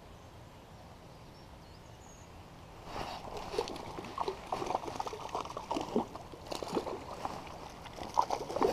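Low steady river background, then from about three seconds in a hooked rainbow trout splashing at the water's surface in quick, irregular splashes.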